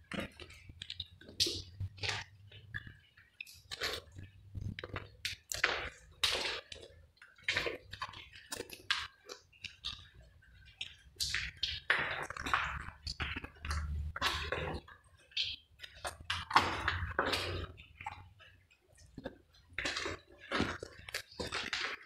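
Footsteps crunching on grit and debris, an irregular run of short scraping steps at walking pace, with low rumbling handling noise on the microphone.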